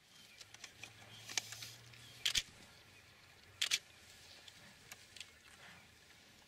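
Camera shutter clicking several times over a quiet outdoor background. The loudest are two double clicks about a second and a half apart.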